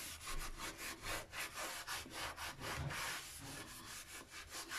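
Soapy sponge scrubbed back and forth over ceramic floor tiles and grout, a quick rhythm of rasping strokes several times a second, working black grime out of the grout lines.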